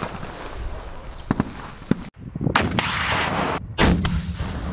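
Gunfire on a military firing range: a few faint shots in the first two seconds, then several loud reports, the last trailing off in a long low echo.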